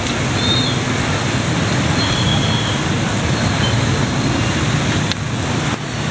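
Steady road traffic noise: engines and vehicles passing on a street, with a few faint high tones early on.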